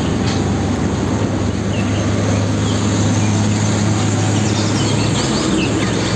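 Fuel tanker truck driving along a road, a steady low engine drone with road noise. Birds chirp briefly now and then.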